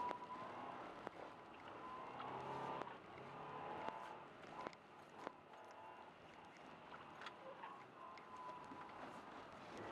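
Subaru Forester driving on a snow-covered road, heard faintly from inside the cabin: a steady low running noise of engine and tyres, with a few sharp clicks.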